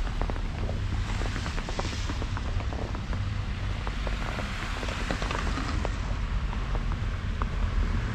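Footsteps crunching on snow, an irregular crackle of many small clicks, over a steady low rumble.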